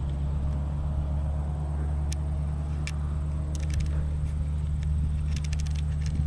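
An engine running steadily as a low drone, with scattered faint clicks and a quick run of clicks near the end.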